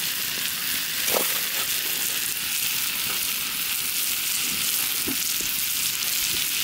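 Pot of water at the boil for cooking yabbies, giving a steady hiss, with a few faint knocks about a second in and about five seconds in.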